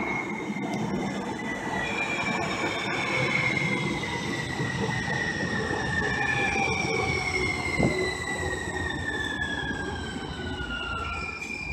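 Muni Breda light-rail train running into an underground station: a steady rumble of wheels on rail under a high whine that slides down in pitch three times as the train slows, with a single thud about eight seconds in.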